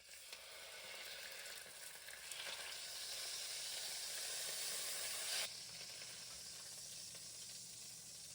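Marinated chicken thighs searing in a hot pan, sizzling steadily. The sizzle drops abruptly to a quieter level about five and a half seconds in.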